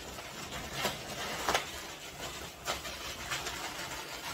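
Inflated latex modelling balloon being twisted and handled, giving short squeaks and rubbing as a bubble is twisted off. The sharpest squeaks come about one and a half seconds in and near the middle.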